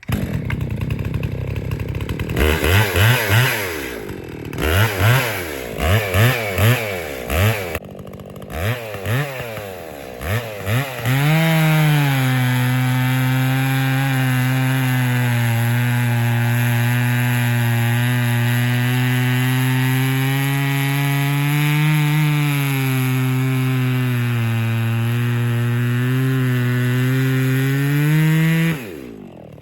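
Echo 680 chainsaw revved in a string of short throttle blips, then held at full throttle under load as it cuts steadily through a log for about seventeen seconds, the note sagging slightly now and then, before the throttle is released near the end.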